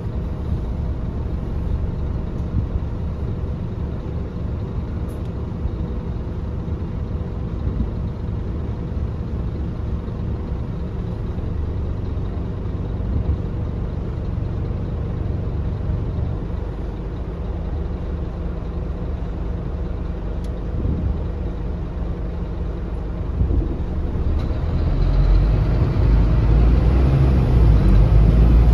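Cabin sound of a Scania K280UB city bus: its rear-mounted Scania DC9 five-cylinder diesel running with a steady low rumble. About three-quarters of the way through it grows louder and deeper, with a whine rising in pitch, as the bus accelerates.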